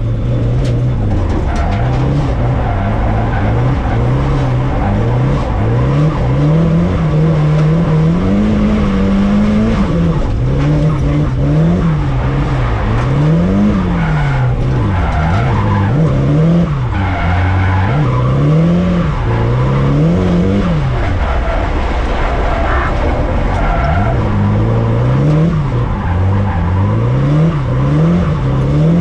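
Car engine heard from inside the cabin, revving up and down over and over as the car is driven hard, with tyres skidding and squealing.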